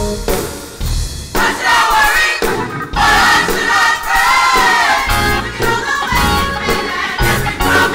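Gospel choir singing with band accompaniment. The voices thin out about a second in, then come back in full from about three seconds.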